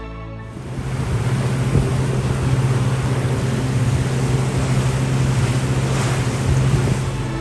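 Boat engine running with a steady low drone, with water rushing past the hull and wind noise on the microphone, coming in about half a second in.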